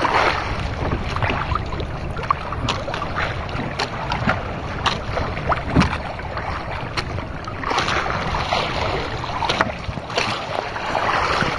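Wind buffeting the microphone and choppy sea washing against a small wooden outrigger boat, swelling and easing, with scattered light knocks and clicks from the boat and the fishing line being handled.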